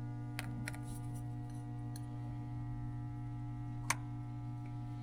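A few sharp metallic clicks and taps from hand tools working at an engine's thermostat housing, the loudest near the end, over a steady low hum.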